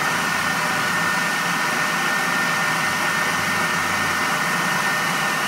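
Electric kitchen blender running at a steady speed, a constant motor whine over grinding noise.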